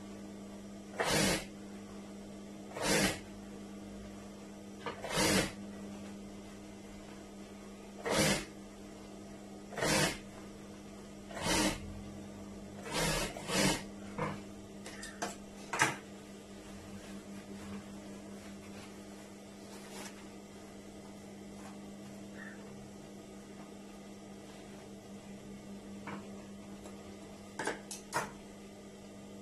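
Juki industrial sewing machine stitching in short bursts of about half a second, several times in the first half, over the steady hum of its motor; a couple of quick scissor snips near the end.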